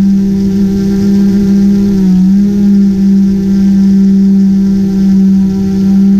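Multirotor drone's motors and propellers buzzing steadily while it hovers, the pitch dipping briefly about two seconds in.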